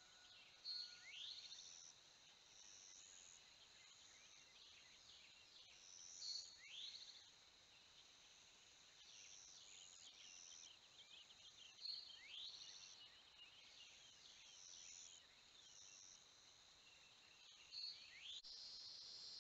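Faint birdsong in a dawn chorus: one bird repeats a call of a short high note and a rising whistle about every five to six seconds, among scattered faint chirps. Near the end a steady high insect hiss starts abruptly.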